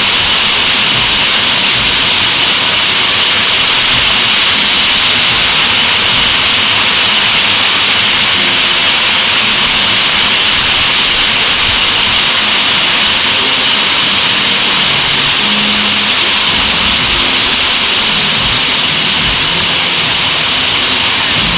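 Waterfall crashing into its pool close by: a loud, steady rushing hiss.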